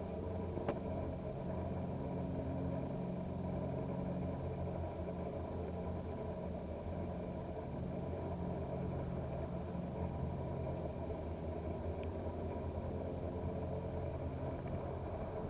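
Cessna 172's piston engine and propeller running steadily, with an even drone that holds its pitch and level. There is a faint tick a moment in and another near the end.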